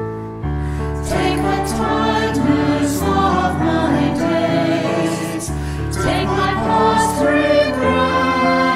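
A hymn sung by a group of voices over sustained instrumental accompaniment. After a brief pause, a new verse begins about half a second in.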